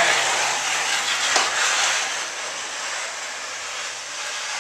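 Runners of a small youth luge sled (Kinderrodel) hissing and scraping over the ice as the sled slides away down the start ramp, fading as it draws off, with one sharp click about a second and a half in.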